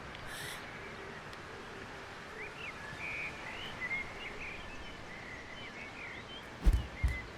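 Steady ambient background noise with small birds chirping on and off, then two low thumps near the end, the first the louder.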